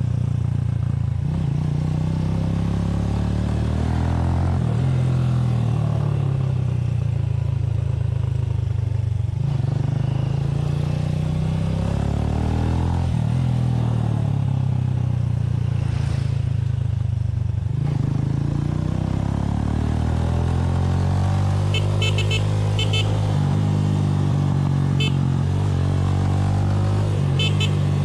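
Motorcycle engine running under way, heard from the rider's seat, its pitch rising as it accelerates and dropping back several times over, with a few light ticks near the end.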